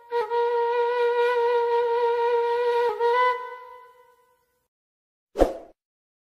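Background music: a flute holding one long note with a slight vibrato, moving to a new note about three seconds in and fading out a second later. After a silence there is a single short thump.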